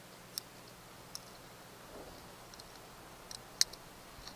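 A few sharp metallic clicks from a multi-tool being handled while cutting peeled shrimp bait, the loudest about three and a half seconds in, over a faint steady low hum.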